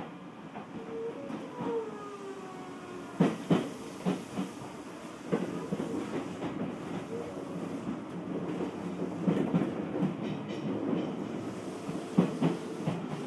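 Odakyu 1000 series electric train running between stations, heard from inside the car: steady rolling noise with groups of wheel clicks over rail joints about three to four seconds in and again near the end. A faint gliding whine comes about a second in.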